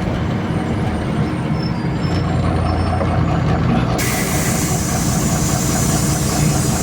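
MAZ-203 city bus, heard from inside: the engine runs with a low, steady drone, and about four seconds in a loud hiss of compressed air from the bus's pneumatic system starts suddenly and goes on for several seconds.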